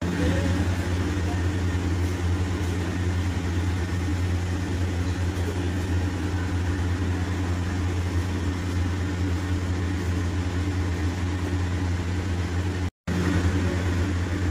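Steady low mechanical hum of a running motor, which cuts out briefly near the end.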